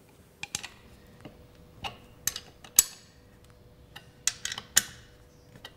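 Irregular sharp metallic clicks and clinks of a spanner and bolts as a steel mounting bracket is bolted onto an airflow meter, about ten knocks spread unevenly with short gaps between.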